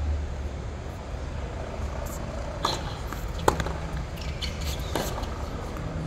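Tennis ball struck during a rally on a hard court: three sharp pops about a second apart in the middle, the loudest from the nearest racket, over a steady low background rumble.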